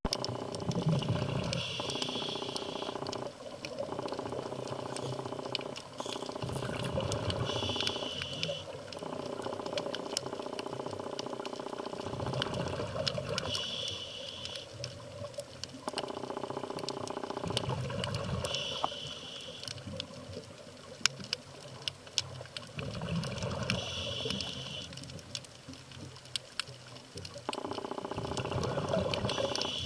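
Underwater sound of a scuba diver breathing through a regulator, with a rushing rumble of exhaled bubbles and a short hiss of inhaling repeating every five to six seconds. Scattered sharp clicks and crackles run through the water throughout.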